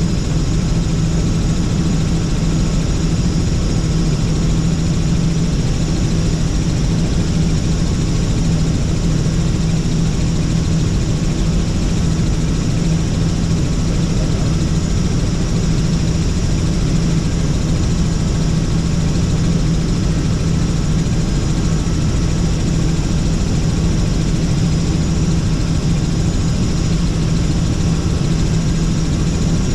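Steady helicopter cabin noise in flight: engine and rotor running evenly, with a strong low hum, heard from inside the cabin.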